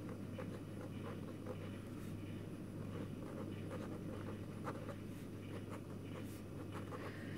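Sakura Pigma Micron fineliner tip scratching on paper, writing block letters in short, irregular strokes over a steady low hum.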